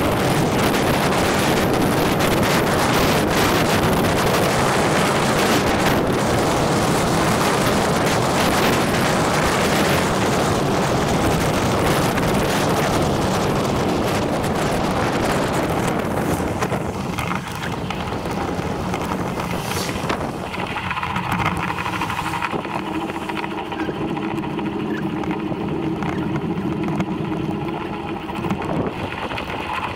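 Wind rushing over the microphone of a camera on a moving bicycle. About 17 seconds in the rush eases, and a steady hum with a few even tones comes through.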